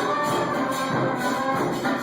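Music with percussion and brass: sustained brass-like notes over a steady beat of tambourine-like strokes.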